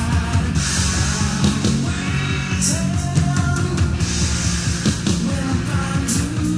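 Hard rock music with distorted electric guitars, drums with crashing cymbals, and a singing voice.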